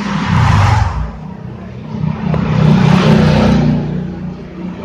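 A motor vehicle's engine running and passing by, swelling twice, about half a second in and again around three seconds in.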